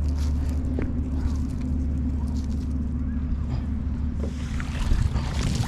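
A steady low rumble, and from about four seconds in a rising hiss of water splashing and dripping as a cast net is hauled up out of the lake by its rope.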